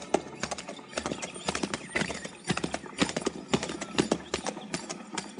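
Horses' hooves clopping at a walk, several knocks a second in an uneven rhythm, as a radio-drama sound effect.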